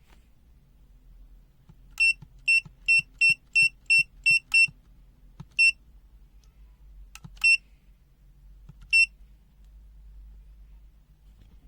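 Habotest HT203D clamp meter's beeper giving short, high electronic beeps, a quick run of eight at about three a second, then three more, spaced out. These are the kind of beeps that confirm key presses while the meter is being switched between modes.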